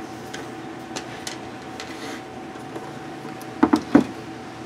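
Plastic housing of a disassembled ultrasonic cleaner being handled on a workbench: a few light clicks, then about three sharper knocks close together near the end, over a steady low hum.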